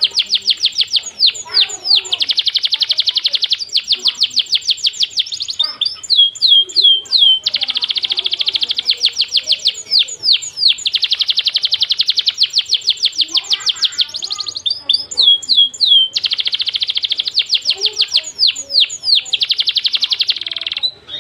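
Songbird tutor song (masteran) from caged cucak cungkok, canary and ciblek: long runs of very fast, high-pitched trilling alternate several times with quick bursts of downward-sweeping whistled notes. The song cuts off abruptly near the end.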